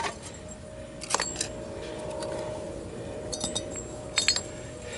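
Metal car parts and tools clinking and knocking together as they are handled, in three short clusters of sharp clinks, over a faint steady hum.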